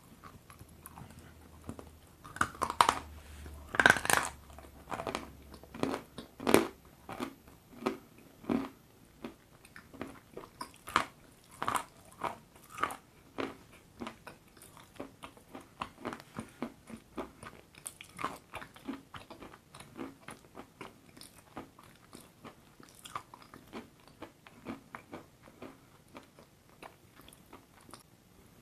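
Close-miked biting and crunching of a hard, brittle piece dipped in thick paste: a few loud crunches in the first several seconds, then many softer chewing crunches and wet mouth clicks that gradually die down.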